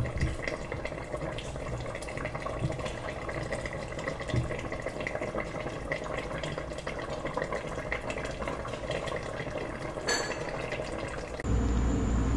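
Tagine sauce with green olives simmering in the pot, bubbling with many small steady pops. Near the end a louder steady low rumble takes over.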